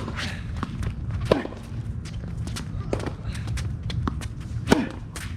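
Tennis rally: racket strikes on the ball, with players' shoes scuffing and squeaking as they run, over a steady low background rumble. The two loudest sharp sounds come about a second in and near the end.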